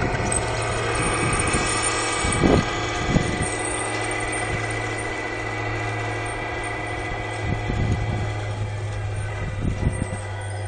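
Radio-controlled Tamiya Scania R470 truck pulling a low-loader away, a steady mechanical hum with a higher whine that fades over the first few seconds as it drives off. A couple of thumps come about two and a half and three seconds in.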